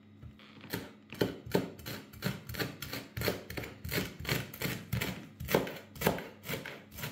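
Chef's knife chopping fresh dill on a wooden cutting board: a steady run of knocks, about three a second, starting about half a second in.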